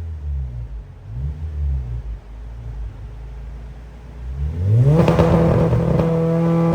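Honda Civic EP3 Type R's K20 four-cylinder engine, running low and uneven at first. About four and a half seconds in it revs up sharply and then holds steady at high revs, much louder.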